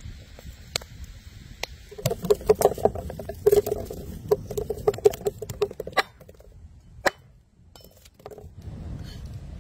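Shallots dropping and rolling on a wooden tabletop: a rapid run of light taps and clicks for about four seconds, then a near-quiet pause with a single click.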